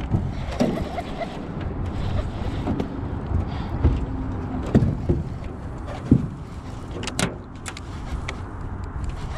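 Wind rushing over the microphone while a hooked fish is played from a small aluminium boat, with a few short thuds and a cluster of sharp knocks about seven seconds in.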